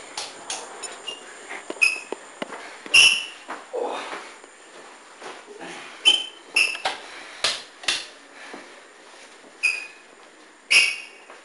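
Footsteps on a hard floor: about a dozen irregular, sharp steps, several with a short high squeak of shoe soles.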